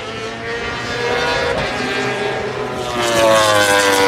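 Ducati Panigale V4 R's V4 engine running hard as the bike travels along a race track, a smooth multi-toned engine note that grows louder about three seconds in as the bike draws nearer.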